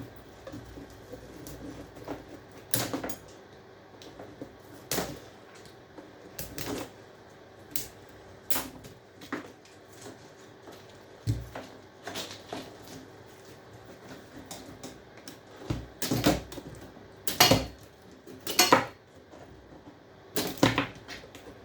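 Irregular knocks and clunks of copper pipe being handled and straightened by hand, a sharp one every second or two, the loudest ones near the end.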